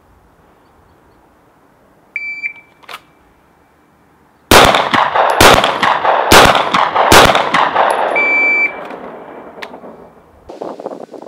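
A shot-timer beep starts the string, then a pistol fires four shots about a second apart, each echoing off the range, two on each of two targets. A second, identical beep about six seconds after the first marks the end of the six-second time limit; rustling of handling follows near the end.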